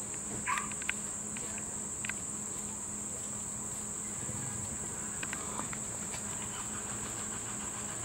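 Steady high-pitched insect chorus, an unbroken drone, with a few faint clicks about half a second and two seconds in.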